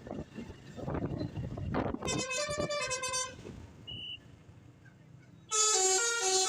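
A bus's Basuri telolet air horn playing a quick stepped melody of several notes about two seconds in, after a stretch of road noise. It plays again, louder, from about five and a half seconds in.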